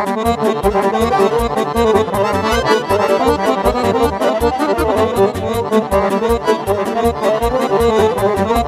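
Instrumental Romanian folk party music in hora and sârbă style, led by a Roland digital accordion playing a fast melody, with violin and keyboard backing over a steady quick beat.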